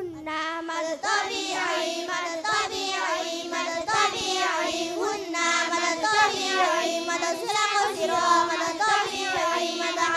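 A group of girls chanting together in unison through microphones, a melodic group recitation of Quran-reading lessons (tajwid and gharib rules), carried on without a break.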